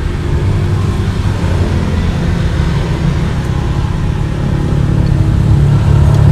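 Low, steady engine rumble of a running motor vehicle, growing a little louder near the end.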